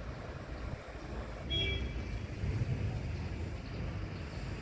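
Steady low rumble of vehicle engines, with a brief high-pitched toot about a second and a half in.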